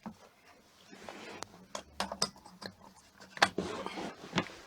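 Scattered clicks and knocks of a DVD player being handled, set down and plugged in, over a faint low hum. The sharpest knocks come a little after three and a half seconds in and again near four and a half seconds.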